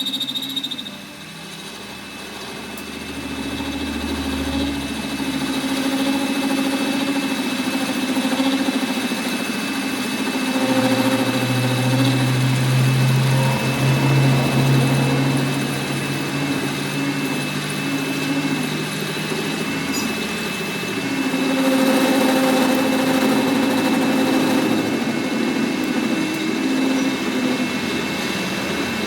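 A machine motor running steadily, its hum changing in pitch and strength now and then, with a strong low hum from about a third of the way in to past the middle.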